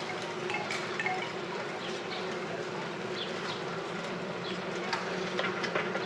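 Rented Sypherd Cycles bicycle buzzing steadily as it is ridden, with scattered short clicks and squeaks on top; the rented bike is noisy.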